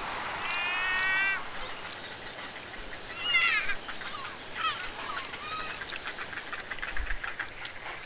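Water birds calling over the steady rush of river water: one held call in the first second or so, then several short bending calls, and a rapid run of clicking calls near the end.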